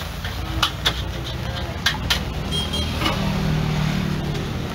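A metal spatula clanks against a wok a few times in the first half. Underneath, a vehicle engine rumbles steadily and grows louder about three seconds in.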